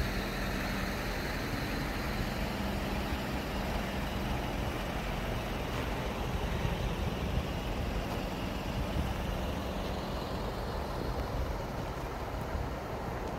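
An engine idling steadily: a low hum under an even rushing noise.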